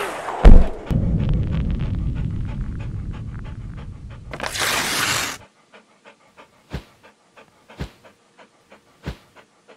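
Intro sound effects: a sharp heavy hit about half a second in, a low rumble, and a whoosh around four and a half seconds, then a dog's quick rhythmic panting, about three pants a second, with three low thumps.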